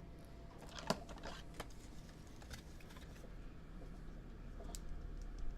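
Scattered light clicks and taps at an irregular pace, the sharpest about a second in.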